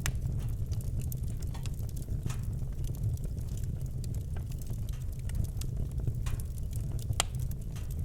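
Wood fire burning in a fireplace: a steady low rumble from the flames with scattered sharp crackles and pops. A louder pop comes right at the start and another about seven seconds in.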